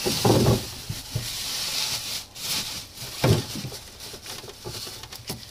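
Rustling and handling noise: a hiss that fades about two seconds in, scattered clicks, and two soft thumps, one near the start and one about three seconds in.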